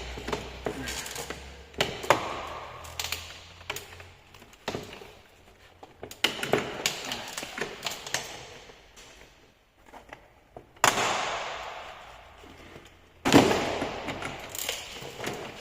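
Car door trim panel being worked loose by hand: a string of plastic clicks and knocks, then two longer scraping rustles of the panel sliding against the door, about 11 and 13 seconds in.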